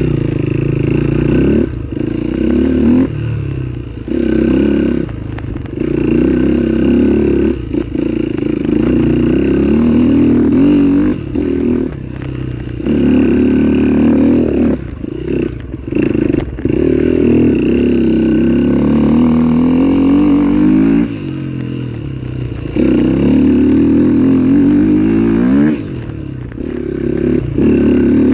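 Dirt bike engine revving in repeated throttle bursts, the revs rising and falling every second or few, with short drops to a lower note in between.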